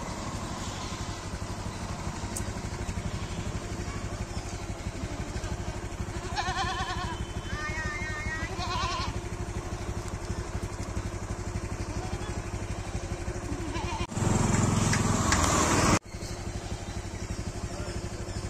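A motor runs steadily throughout. About a third of the way in, an animal gives two wavering bleats. Near the end, a louder rush of noise lasts about two seconds and cuts off suddenly.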